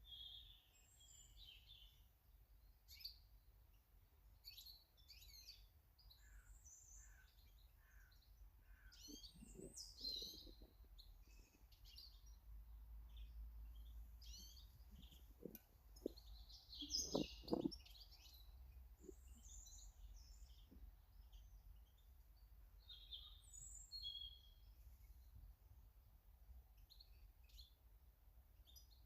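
Small garden birds chirping faintly, many short calls scattered throughout, over a low steady rumble. A few soft knocks break in around the middle, the loudest about seventeen seconds in.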